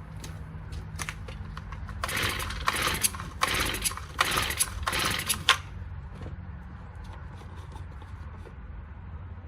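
Recoil starter of a Honda four-stroke string trimmer yanked in a quick run of about five pulls, each a short rasping whirr of cord and engine turning over. The engine does not fire or catch.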